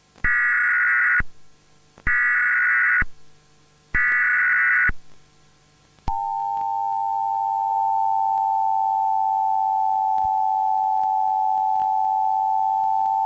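Emergency Alert System broadcast signals: three one-second bursts of warbling data tones (the SAME header), each followed by about a second's gap, then about six seconds in the steady two-tone attention signal starts and holds.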